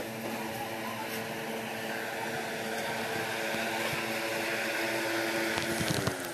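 A motor humming steadily, growing louder, then dropping in pitch and fading near the end.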